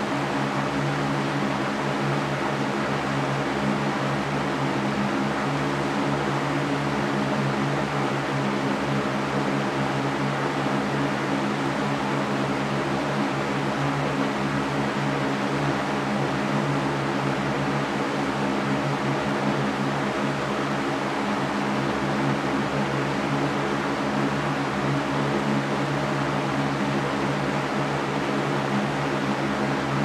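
Electric fan running steadily: an even rush of air with a steady low hum beneath it.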